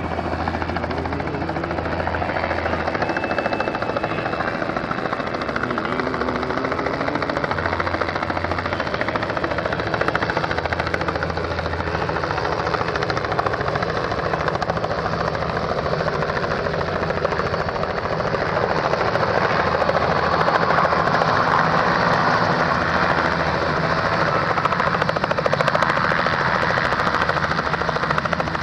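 Aircraft noise: a steady, loud rushing engine sound with a fast flutter running through it, growing louder in the last third.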